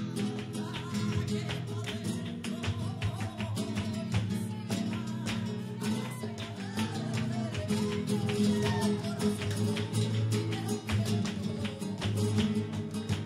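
Live flamenco music: a flamenco guitar playing with dense, sharp percussive strokes over a steady low accompaniment.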